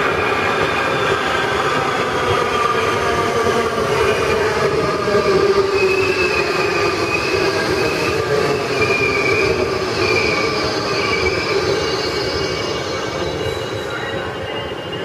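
Four-car Budd-built Metro Subway train pulling into an underground station and slowing: a steady rumble of wheels on rail with tones sliding down in pitch as it slows. A high wheel squeal comes and goes from about six to eleven seconds in, and the sound eases off near the end.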